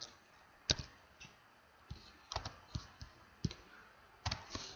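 Faint, scattered key clicks on a computer keyboard, a single tap every half second or so, with a quick run of clicks near the end.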